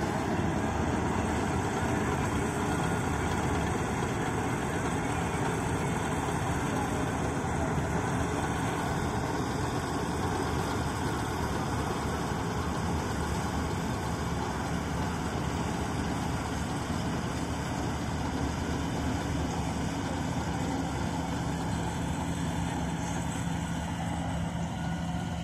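Dasmesh 9100 self-propelled combine harvester at work cutting a crop, its diesel engine and threshing machinery giving a steady drone. It grows slightly quieter near the end as the machine moves away.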